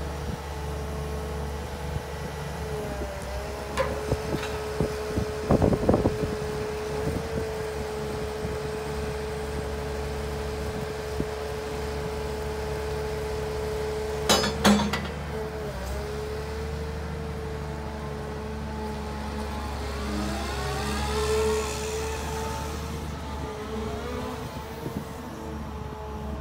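CAT M322D wheeled excavator's diesel engine running with a steady whine while the boom and bucket move and the upper structure swings. There are sharp clanks about 4, 6 and 14 seconds in, and a rising and falling tone around 20 seconds in.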